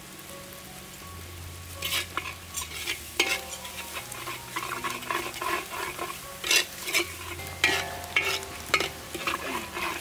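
A metal ladle stirring and scraping thick sauce around a wok while the sauce sizzles and bubbles. The scraping strokes come again and again from about two seconds in.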